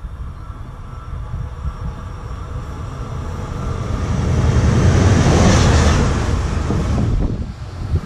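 A train passing: a rumble and hiss that builds to a peak about halfway through, then fades.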